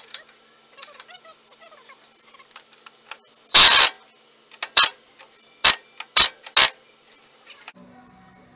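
Impact wrench hammering on a nut: one longer burst about three and a half seconds in, then four short bursts. Light clicks come before it.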